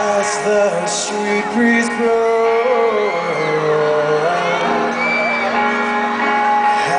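Live band playing a slow rock song with a male voice singing, recorded from among the audience, with a few shouts and whoops from the crowd near the start.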